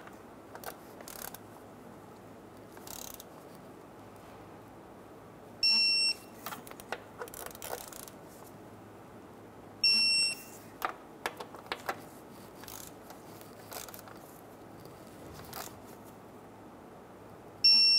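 Digital torque wrench beeping three times, each a short high beep of about half a second, as each transfer case shift motor bolt reaches the set 13 ft-lb. Faint ratchet clicks come between the beeps.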